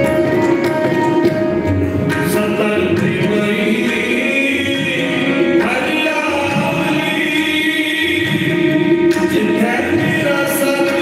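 Sikh kirtan: two harmoniums holding sustained chords and a tabla keeping rhythm, accompanying a male voice singing hymns into a microphone.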